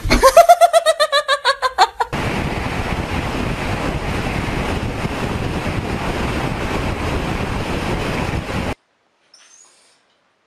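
A high-pitched voice pulsing rapidly and falling in pitch for about two seconds. Then steady wind rush on the microphone of a car moving at speed, which cuts off suddenly.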